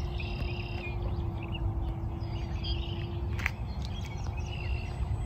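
Birds chirping in short scattered calls over a steady low rumble of wind noise. A faint steady hum runs under them and weakens about three and a half seconds in, where a single sharp click is heard.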